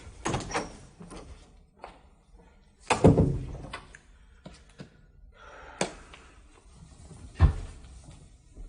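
A few knocks and thuds with a door being shut; the loudest is a heavy thud about three seconds in, with a sharp click near six seconds and another thud about a second and a half later.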